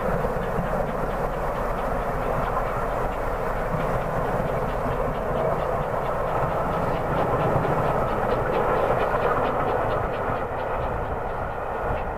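Steam locomotive hauling a passenger train at a distance, its exhaust beats running together into a steady rush, with faint regular beats audible in the second half.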